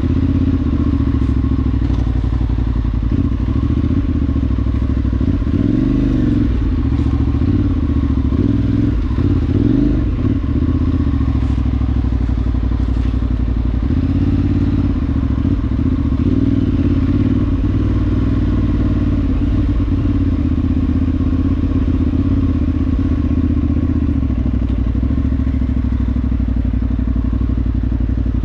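Parallel-twin adventure motorcycle engine running on an off-road ride. Engine speed rises and falls several times about five to ten seconds in, then holds steadier.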